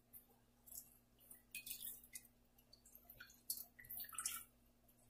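Faint, irregular drips of water, with a few louder drops about three and a half to four and a half seconds in.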